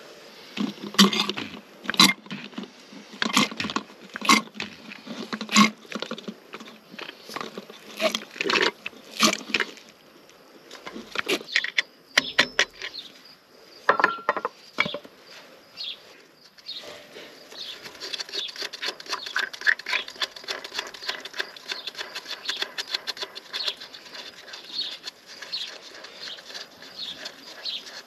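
Hammer blows on a steel punch, driving a key out of the disc mower's gearbox bevel gear: sharp metal strikes at uneven spacing, roughly one a second, a few of them ringing briefly. From about 17 seconds in, a long run of fast, fine clicking takes over.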